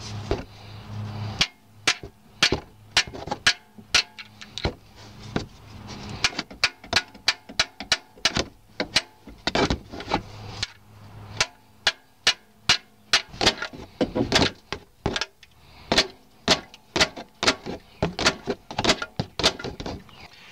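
Heavy hammer striking the steel handle of an oil-pan gasket separator again and again, driving its blade between the oil pan and the engine block to cut through old RTV silicone sealant. Sharp metallic blows, about two a second, with a few short pauses.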